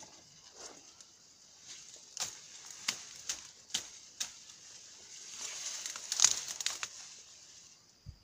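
Dry undergrowth and twigs crackling and snapping as gloved hands push through the brush. There are about five sharp snaps in the first half, then a longer burst of crackling rustle a little past the middle, and a short thump near the end.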